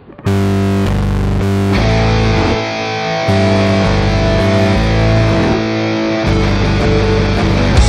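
Background music: a rock track led by distorted electric guitar, its chords changing every half second or so.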